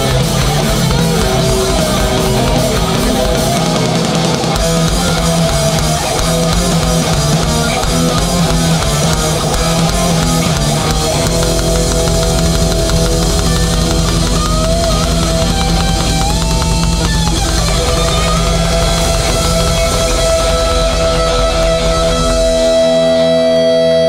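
Live crossover thrash band playing loud distorted electric guitar, bass and drums. Near the end the drums stop and held guitar notes ring on.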